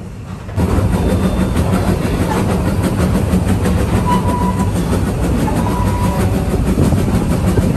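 Puffing Billy narrow-gauge steam train running, heard from an open carriage near the front: the locomotive's steam exhaust and the wheels on the rails make a loud, steady rumble that starts abruptly about half a second in. Two short high tones sound around the middle.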